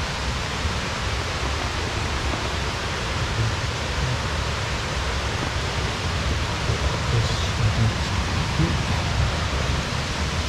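Steady rushing noise with a fluttering low rumble underneath.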